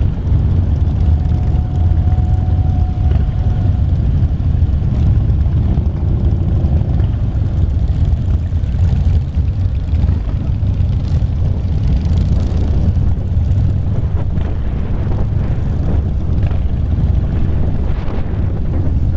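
Motorcycle engine running with a steady low rumble as the bike rides along slowly in a column of other motorcycles, heard from the rider's seat.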